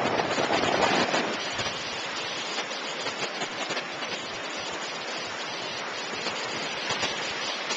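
Lake waves washing on the shore as a steady hiss, with wind buffeting the microphone strongest in the first second or so.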